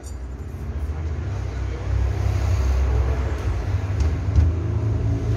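Low rumble of a running engine, getting louder about two seconds in.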